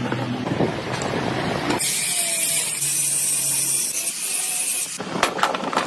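Workshop power-tool noise during work on a metal gear, with a strong high-pitched hiss from about two seconds in to about five seconds, then a few sharp clicks.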